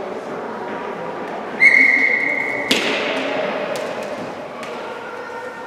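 A referee's whistle blows one steady note for about a second, cut off by a single sharp crack that rings on in the large arena. Faint chatter runs underneath.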